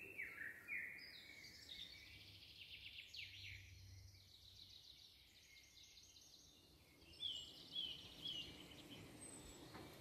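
Several songbirds singing at once in the woods: overlapping trills and short falling whistles, with a run of three quick falling notes about seven seconds in and thin high notes near the end, over a faint steady outdoor hush.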